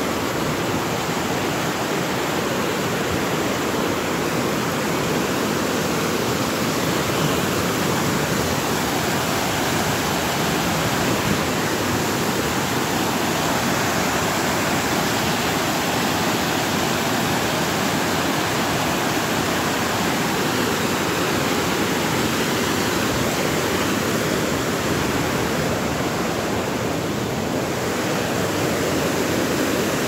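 Waterfall cascading over rocks into a pool: a steady, unbroken rushing of water.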